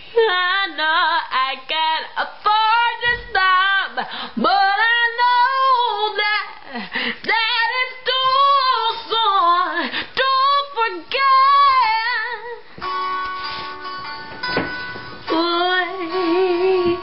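A woman's voice singing unaccompanied in sliding, ornamented runs. About thirteen seconds in, the singing gives way to instrumental music with steady held notes.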